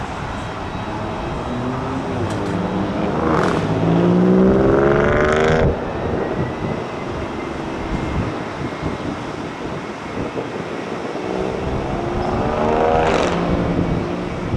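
Two motor vehicles accelerating past, each with a rising engine note. The first cuts off abruptly about halfway through; the second rises and fades near the end. A steady rumbling background runs underneath.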